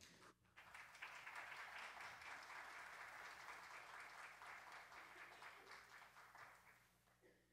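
Congregation applauding, starting about half a second in and fading away near the end.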